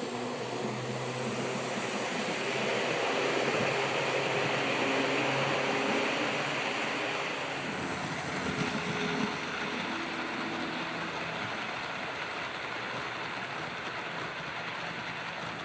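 Athearn Blue Box SD40-2 HO scale model locomotive running on track: a steady whir of its electric motor and gears with wheel noise on the rails, a little louder in the middle of the run and easing off later.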